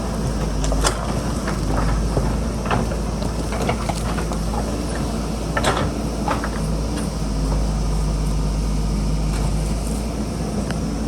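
JCB backhoe loader's diesel engine running steadily under work, with a few sharp knocks and clacks scattered through.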